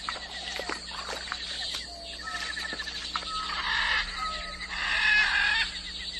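Outdoor animal ambience: a steady rhythmic chirring, likely insects, with short whistled bird notes. Two louder animal calls come about three and a half and five seconds in.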